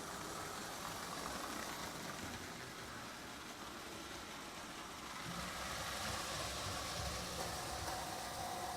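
Marx electric toy train locomotive running around the layout's track, a steady whirring of motor and wheels that grows louder about five seconds in as the train comes closer.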